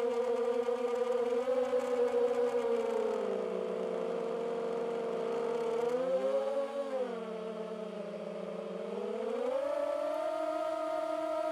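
DJI FPV drone's motors and propellers whining, the pitch sliding down and up with the throttle: it drops about three seconds in, rises and falls again around six to seven seconds, climbs near ten seconds and falls away at the end.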